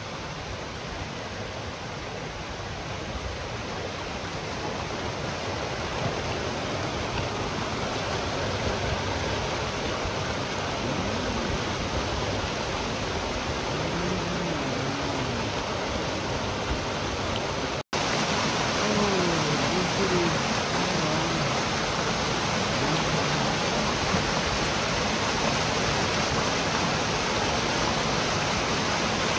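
Mountain stream rushing and splashing over boulders in small cascades, growing louder. It cuts out for an instant a little past halfway and comes back louder.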